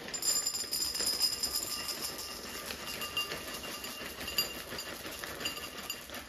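Chocolate chips poured from a plastic bag into a ceramic bowl on a kitchen scale: a continuous rattling patter of hard chips hitting the glazed bowl and each other.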